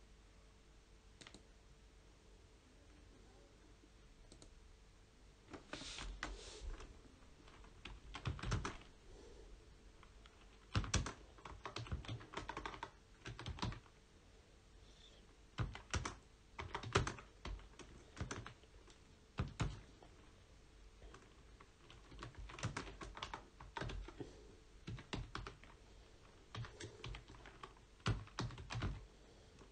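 Typing on a computer keyboard: irregular bursts of keystrokes that start about five seconds in.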